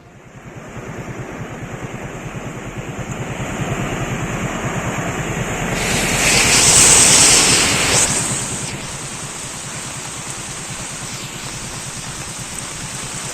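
Floodwater rushing in a steady roar of noise, swelling louder and hissier for about two seconds from around six seconds in before settling back.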